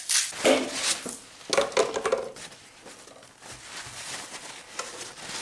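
Hands handling a gutted bluefish in a glass baking dish: a few quick scraping, rustling strokes in the first two seconds, then softer rustling.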